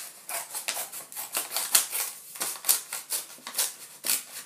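A sealed mailing package being cut open: a quick, irregular run of sharp snips and scratchy strokes, several a second.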